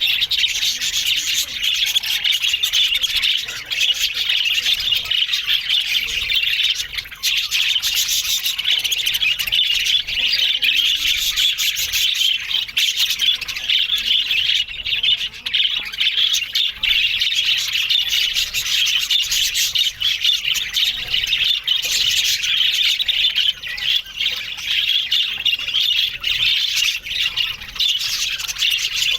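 A colony of budgerigars chattering continuously, many birds calling over one another at once.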